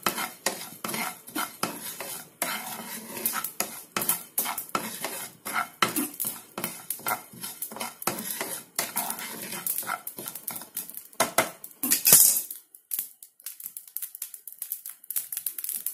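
Wooden spatula stirring and scraping cumin seeds as they dry-roast in a pan, in quick repeated strokes with the seeds rattling. The stirring stops about three quarters of the way through, leaving only a few faint ticks.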